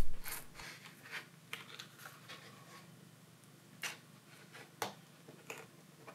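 Thin plastic pry card scraping and clicking against an LG K50S battery and phone frame as it is worked under the battery to cut the adhesive. A sharp click right at the start, then scattered light scratches and ticks about a second apart.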